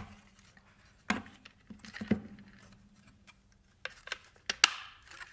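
ABS plastic chassis plates of a snap-together robot kit being handled and pressed together: scattered plastic clicks and taps, the loudest a sharp snap about four and a half seconds in.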